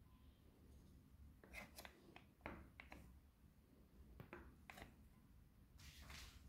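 Faint handling sounds of a stainless-steel bench scraper cutting through pizza dough: several soft clicks and taps as the blade meets the stone countertop, then a short scraping rustle near the end.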